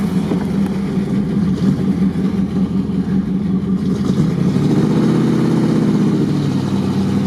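Off-road vehicle engine running, revving up about halfway through: its pitch rises and falls back.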